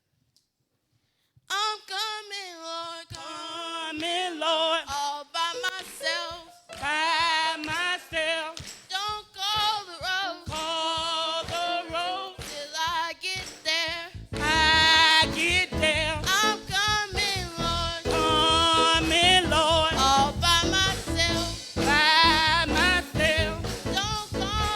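Gospel singing: a solo voice sings a melismatic, vibrato-laden line, sparsely backed at first. About fourteen seconds in, a full band with bass and drums comes in under the singer.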